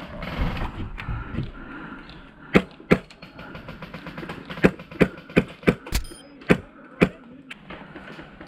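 Airsoft rifle fired single shots, about nine sharp cracks at an uneven pace, starting a couple of seconds in, with a pair first and then a quicker string.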